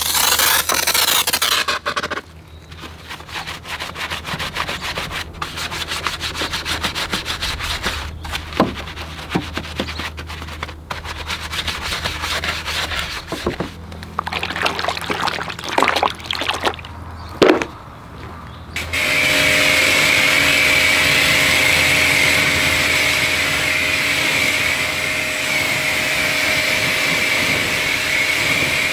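Brief hiss of a foam sprayer, then a detailing brush scrubbing with quick, uneven rubbing strokes and the odd sharp knock. About two-thirds of the way in, a pressure washer starts. It runs steadily: the hiss of its water jet over a steady motor whine.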